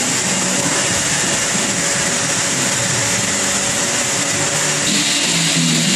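Steady, loud motor noise like an electric air blower, unbroken throughout.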